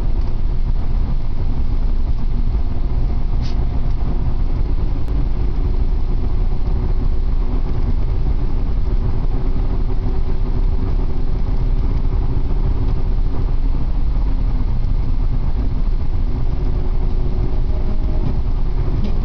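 Saab 900 cruising at a steady speed, heard from inside the cabin: a steady low engine drone under a continuous rumble of tyres on the road.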